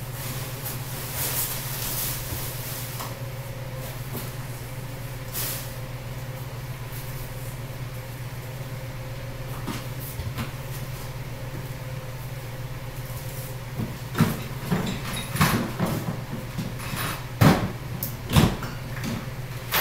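Things being handled and moved about in a plastic storage tote: a run of knocks and clatters in the last six seconds, the two loudest close together near the end, over a steady low hum.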